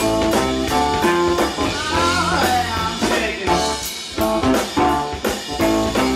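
Live blues band playing: drum kit, electric bass, keyboard and electric guitar, with a sliding lead phrase in the middle.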